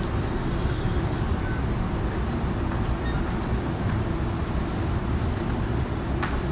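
Steady low rumble of vehicle noise, with one short click near the end.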